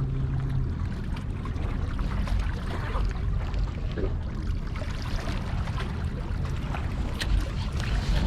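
Seawater sloshing and washing against a pier, over a steady low rumble.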